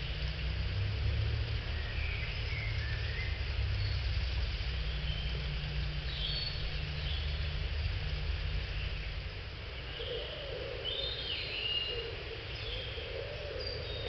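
Woodland birds calling and chirping here and there over a steady low rumble, which is heavier in the first half.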